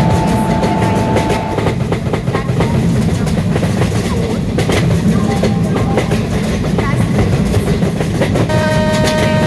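Rajdhani Express train running on the rails, a steady rumble with the wheels clicking over rail joints. A steady pitched tone with overtones comes in about a second before the end.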